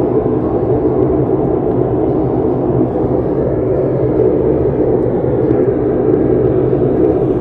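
A loud, steady, low droning rumble that holds without a break. The person recording takes it for a jet from a nearby air force base, though it doesn't sound like any jet they have heard.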